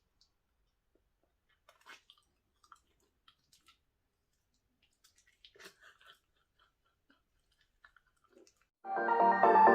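Faint, scattered chewing and mouth sounds of someone eating a banana, soft wet smacks and clicks with gaps between them. About nine seconds in, loud electronic music starts abruptly.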